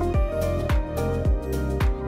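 Background music with a steady beat: a deep drum hit about twice a second under sustained synth-like tones.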